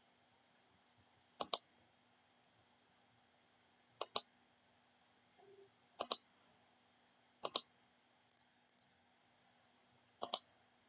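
Computer mouse clicking: five double clicks at uneven intervals of a couple of seconds, over a faint steady hum.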